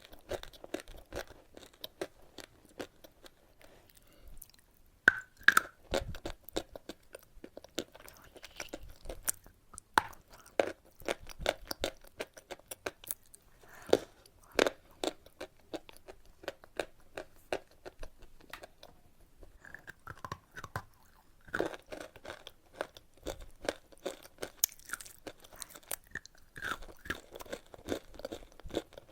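Close-up chewing and crunching of chalk: irregular sharp crunches as it is bitten and ground between the teeth, with a couple of brief lulls.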